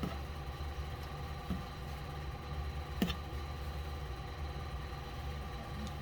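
Steady low mechanical hum with a few fixed pitches, and a sharp click about three seconds in.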